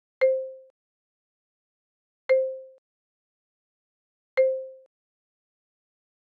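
A short, soft sound effect marking each flashcard change, three times about two seconds apart: a quick click with a single mid-pitched tone that fades away within half a second.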